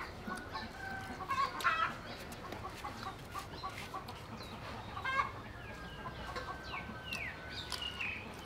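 Chickens clucking in short calls, with brief falling chirps of small birds and soft clicks of chewing.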